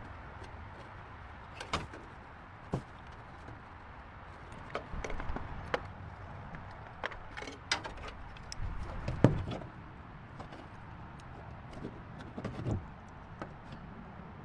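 Intermittent clicks, knocks and clunks of hand work on an old car, irregularly spaced, with the loudest knock about nine seconds in.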